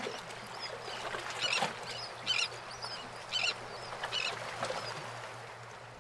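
Anchorage ambience: a steady wash of water and wind with birds calling several times, about once a second, over a faint low steady hum.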